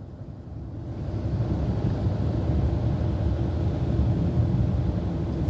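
Steady low rumble that grows louder over the first couple of seconds and then holds.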